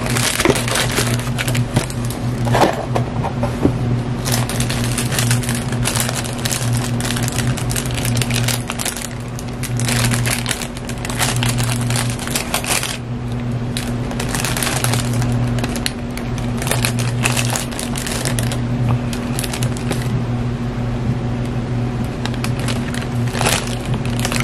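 Paper wrapper crinkling and rustling in repeated handfuls as a fried chicken sandwich is unwrapped and handled, over a steady low hum.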